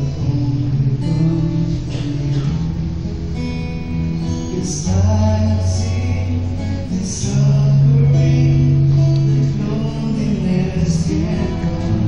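An acoustic guitar strummed while a group of men sing together.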